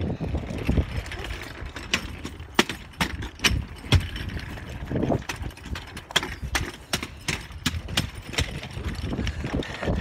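Walking footsteps on concrete and gravel, with knocks and rubbing from a hand-held phone's microphone over a low rumble.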